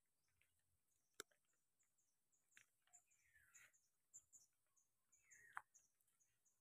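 Near silence, with a faint sharp click about a second in and a few faint short chirps later on.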